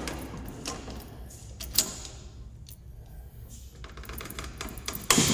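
Chain mole grips working a brass cable gland tight: scattered metal clicks and clinks of the chain and jaws, with a louder knock near the end.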